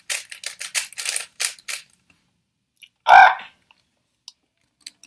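Shengshou Fangyuan 2x2 speed cube being turned quickly, a rapid run of plastic clicks for about the first two seconds, then one louder short sound a little after three seconds in.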